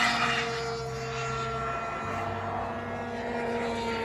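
Radio-controlled model airplanes flying, their motors a thin whine at several pitches that slowly falls as they pass.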